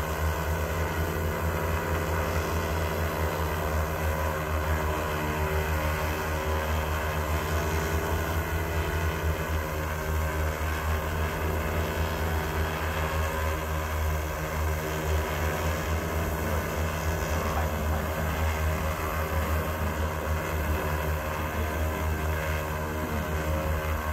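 Large X1400 industrial multirotor drone hovering, its propellers giving a steady, even drone with a strong low hum and layered tones.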